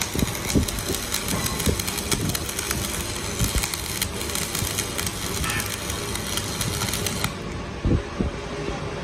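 Steady machine noise with scattered low thumps.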